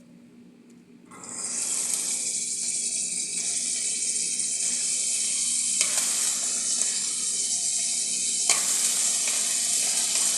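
Diced onion dropped into hot soybean oil in a pan, starting a sudden loud sizzle about a second in that keeps on steadily, with a few light clicks of the utensil against the pan.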